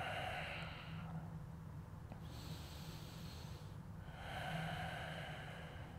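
Slow, audible human breathing in a stretch hold: an out-breath, a longer, higher-sounding in-breath starting about two seconds in, then another out-breath.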